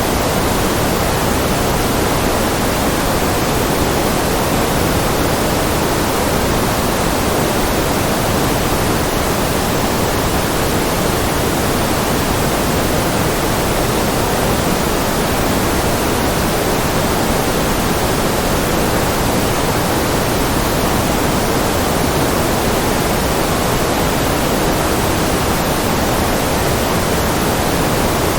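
Steady, unchanging white-noise track: an even hiss with no events in it, weighted more to the lower middle than to the highs.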